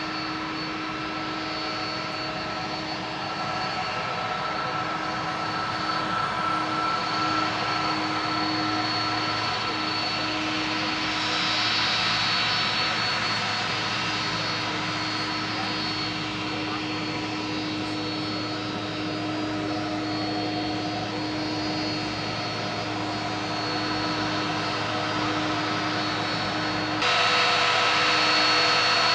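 Airbus A330 airliner's jet engines whining steadily at low taxi power as it rolls past, a mix of held tones over a rushing hiss. Near the end the engine noise suddenly becomes louder and more hissy.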